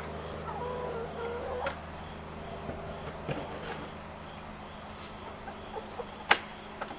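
Hens clucking in a coop, with short calls in the first couple of seconds and scattered scratching clicks, over a steady drone of insects. A sharp knock about six seconds in is the loudest sound.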